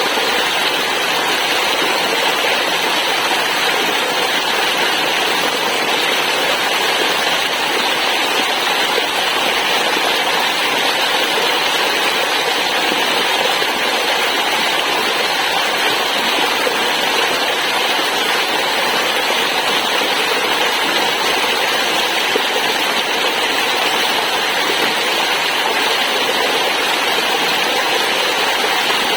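Waterfall, a steady loud rush of falling water with no change in strength.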